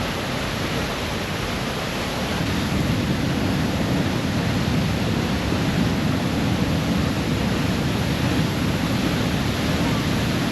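Waterfall rushing: a steady, loud wash of falling water that grows a little louder about two and a half seconds in.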